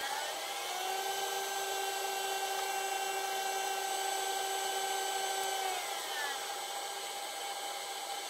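Benchtop laboratory centrifuge spinning: a whine of several steady tones over a hiss from the rotor. The pitch climbs slightly in the first second, holds, then sinks about six seconds in as the rotor slows down.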